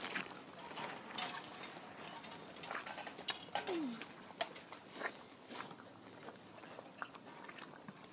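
Irregular soft footsteps and rustling clicks, with one short descending squeak about three and a half seconds in.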